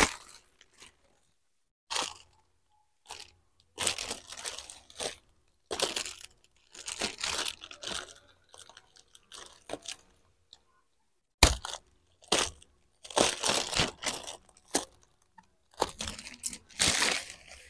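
Shiny plastic wrapping around a bale of fabric crinkling and tearing in irregular bursts as it is pulled open by hand, with one sharper crack about eleven seconds in.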